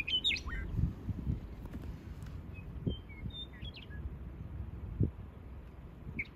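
Small birds chirping in short calls, a cluster at the start and more about three seconds in, over a low steady rumble of wind on the microphone with a few soft thumps.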